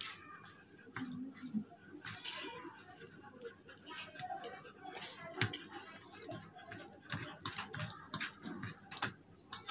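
Eating by hand: wet chewing and lip smacks, with fingers mixing and squeezing rice and fish chorchori on a steel plate, heard as many sharp, irregular clicks and squelches.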